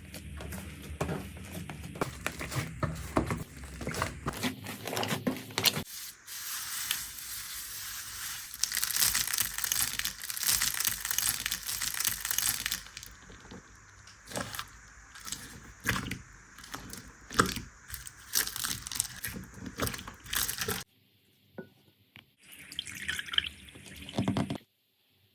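Slime being squished, stretched and pressed by hand: many small sticky clicks and crackling pops, in a few short clips cut together, with a brief near-silent gap about three quarters of the way through.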